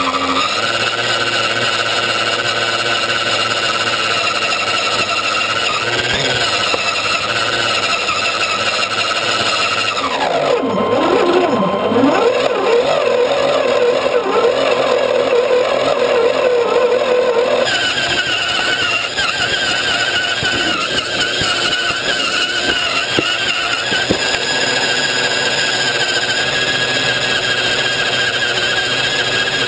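Motor and gear whine of a scale RC Land Rover Defender 90 crawler driving over rough ground, heard from inside the body shell. The whine is steady, and about a third of the way in it sweeps down and back up, then holds a lower pitch for several seconds as the throttle changes, before returning to the earlier pitch.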